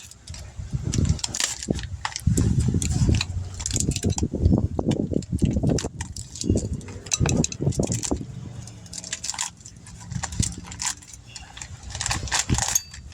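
Irregular metallic clinks, rattles and handling knocks as new brake pads are picked up, turned over and set against each other.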